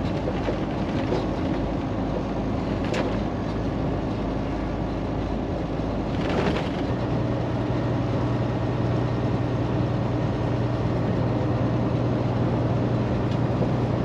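Semi-truck's diesel engine and road noise heard inside the cab while cruising on the highway, a steady rumble. About halfway through, a low steady engine hum comes in more strongly.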